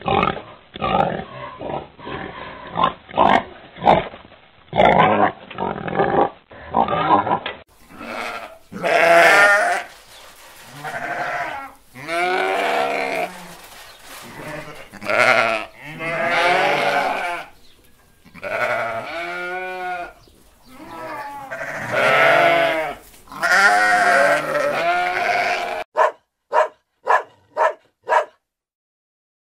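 Pigs grunting for the first several seconds, then a lamb bleating about seven times in long, wavering calls. Near the end come a few short, sharp sounds.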